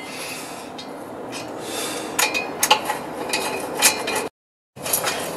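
Light metal clinks and taps of a nut driver, nuts and washers on a two-stage air compressor's cylinder head as the head nuts are started on their studs. The sound drops out completely for about half a second a little after four seconds in.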